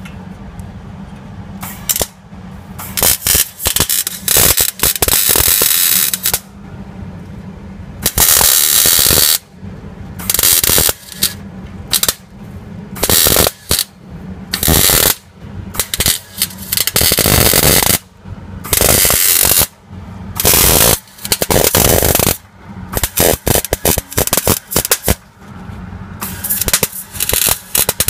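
Arc welder crackling in more than a dozen short bursts, each under about two seconds, starting and stopping as a car's exhaust pipe is welded at a joint.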